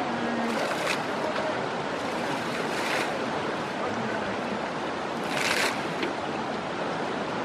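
Steady rush of river water with several splashes as two Asian elephants bathe and move through it, the strongest splash about five and a half seconds in.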